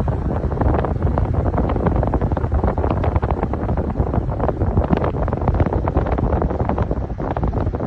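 Air buffeting the microphone: a loud, crackling wind rumble.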